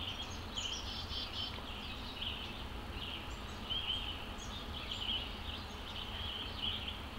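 Several songbirds chirping and singing in overlapping short phrases, over a low steady background rumble.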